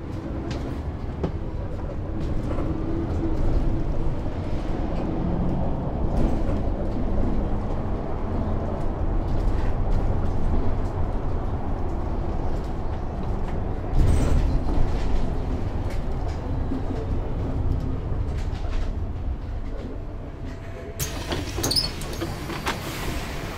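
Mercedes-Benz O530 G II Citaro articulated bus with Voith automatic gearbox heard from the passenger cabin: steady engine and running rumble whose tones shift as the revs change. A sharp knock sounds about two thirds of the way through, and a flurry of rattles and clicks near the end.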